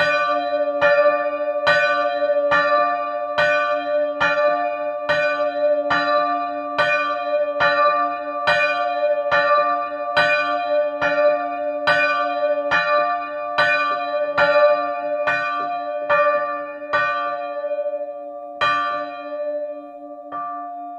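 The 1929 Luigi Magni bronze church bell (61 cm, tuned to d'') ringing on its own, its clapper striking a little more than once a second. Near the end the strokes stop, then one last stroke sounds and the bell's tone rings on, fading.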